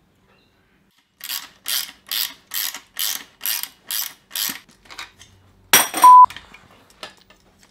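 Ratchet wrench clicking through about eight strokes, roughly two a second, as a bolt is tightened. About six seconds in, a short burst of noise cuts in, followed by a brief, loud, pure test-tone beep.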